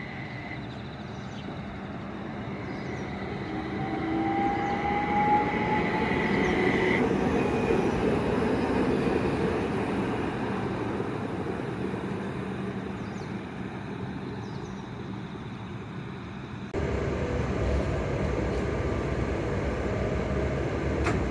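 Light-rail tram running, its motors whining in thin gliding tones over the wheel and running noise, which swells to a peak and then fades. About seventeen seconds in the sound cuts abruptly to a steadier, louder low rumble.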